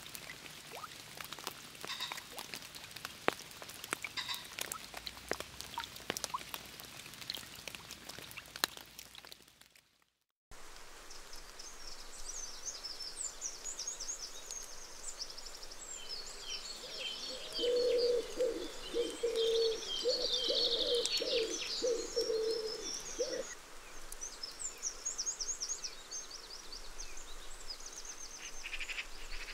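Pattering like raindrops on leaves, then a sudden break; after it, rapid high trilled bird calls repeated on and off. A lower, pulsed call joins in for several seconds in the middle.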